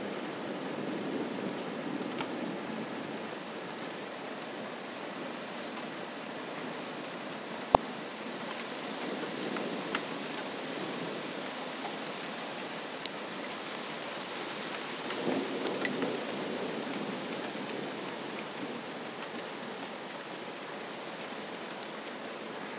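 Steady rain falling during a thunderstorm, with a low rumble of thunder swelling about two-thirds of the way in. A few sharp taps cut through the rain, the loudest about a third of the way in.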